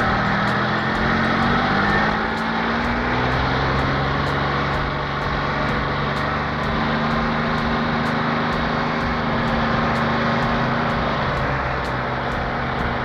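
Cement truck engine running steadily, its low hum drifting slightly in pitch over a steady rushing noise.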